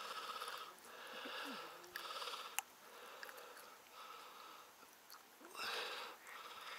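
A man's soft breathing, several quiet breaths in and out through the nose, with a faint sharp click about two and a half seconds in.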